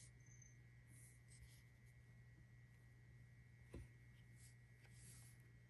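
Faint swishing of trading cards sliding against each other as they are handled, with one soft click about four seconds in, over a low steady hum.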